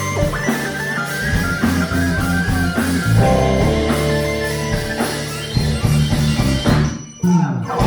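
Live band music with guitar, bass and drums, briefly dropping out about seven seconds in.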